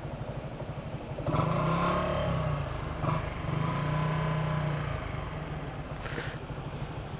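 Honda CG Fan 125's single-cylinder engine idling with an even, fast pulse while the motorcycle stands still. From about a second in to about five seconds a louder, steady engine note rises over the idle, then falls back to it.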